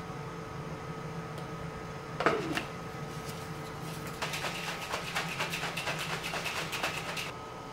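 Plastic protein shaker bottle: a single knock about two seconds in, then from about four seconds in the capped shaker is shaken fast, rattling for about three seconds before it stops. A low steady hum runs underneath.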